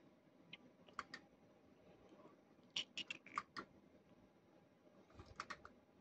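Faint clicking in three short clusters, about a second in, a run of five or six clicks around three seconds in, and a few more near the end, from the buttons of a fruit machine being pressed.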